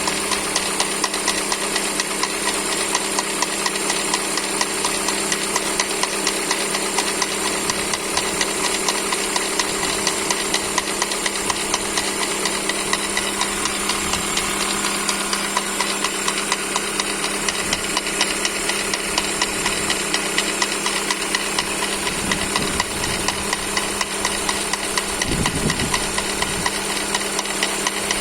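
Toyota 4ZZ-FE 1.4-litre four-cylinder engine running steadily with a regular, heavy knock ticking through it. The owner suspects worn crankshaft bearing shells.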